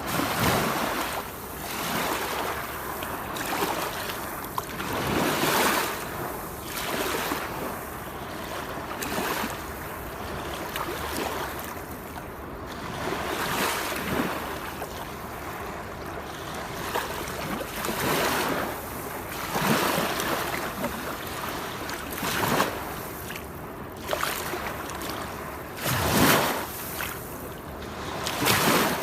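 Waterfall: water rushing and splashing steadily, with irregular louder surges every second or two.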